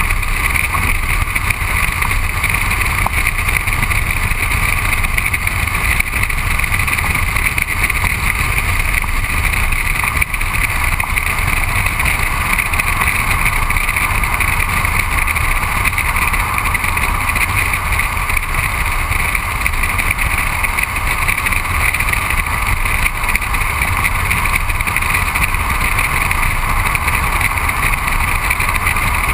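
Steady road and wind noise on a car's outside-mounted camera at driving speed: tyres rolling on asphalt with a low rumble and rushing air over the microphone housing.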